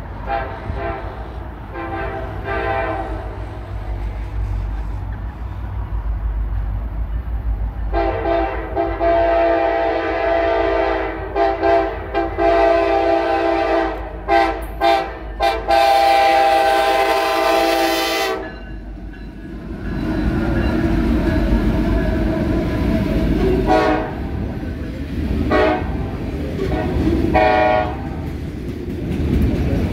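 Diesel freight locomotive air horn: a few short blasts, then one long sounding of about ten seconds broken by brief gaps. After that the locomotives rumble past, with more short horn blasts near the end.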